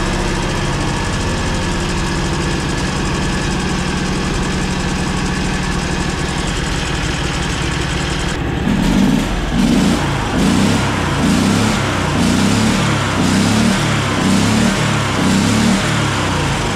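670cc Predator V-twin engine idling off throttle, steady at first. About eight seconds in it changes to a louder, rhythmic pulsing, about one and a half beats a second.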